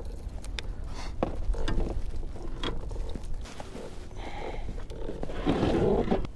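Hands handling gear in a kayak: scattered clicks, knocks and rustling, with a louder stretch of rustling near the end, over a steady low wind rumble on the microphone.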